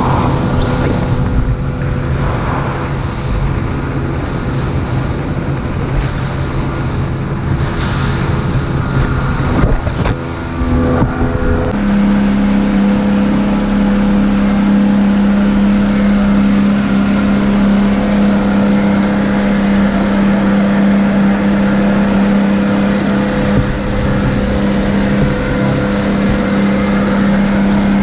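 Mercury outboard motor running at cruising speed, with the wake rushing behind the boat. About twelve seconds in the sound changes abruptly to a single strong, steady hum.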